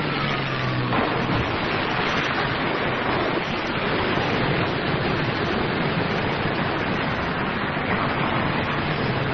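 A steady rushing, hiss-like noise at full programme level, played back from a cassette recording of a radio broadcast, with no speech or music over it.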